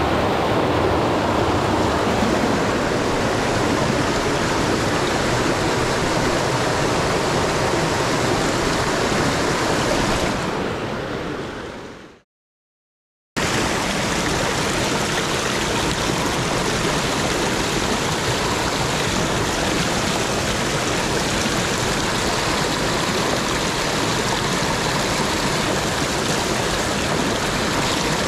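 River water rushing steadily. It fades out about ten seconds in, cuts to silence for about a second, then comes back at the same level.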